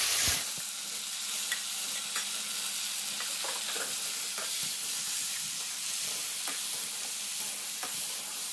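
Diced vegetables sizzling in hot oil in an aluminium wok, loudest just at the start as they go into the pan, then a steady sizzle. A metal spatula scrapes and clicks against the wok as it stirs.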